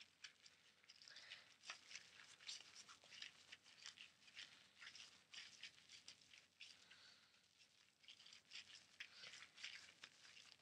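Faint, irregular crackling and rustling of hands working lathered soap through a doll's wet hair.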